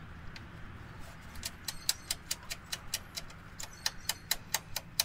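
Rapid ratcheting clicks, about five a second, starting about a second and a half in, from hand work on the tractor's wiring.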